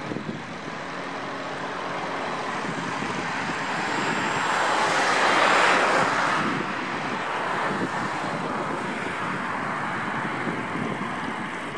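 Single-engine light aircraft's piston engine and propeller droning as it climbs away on a circuit, swelling to its loudest about halfway through and then fading.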